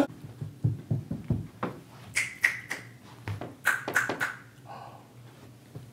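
Irregular light clicks and knocks, well over a dozen in about four seconds, then quieter near the end.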